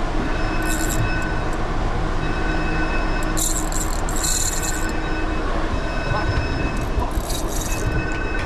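Steady machinery drone with a few thin, high whine tones held over it, broken by short bursts of high hiss about a second, three and a half seconds and seven seconds in.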